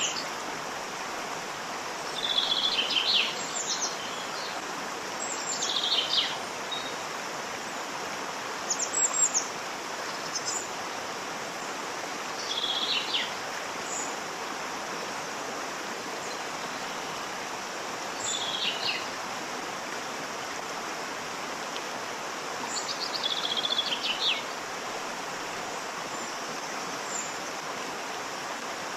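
Waterfall with water rushing steadily, and birds chirping over it in short phrases every few seconds; the calls are the loudest sounds and stop a few seconds before the end.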